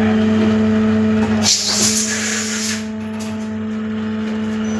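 Machine-shop machine tool running with a steady hum. About a second and a half in the deepest part of the hum stops and a loud hiss sounds for about a second.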